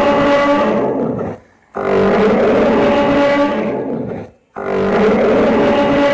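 Dinosaur roar sound effect, played repeatedly: one roar ends about a second in, then two more roars of about two and a half seconds each follow, with short silent gaps between them.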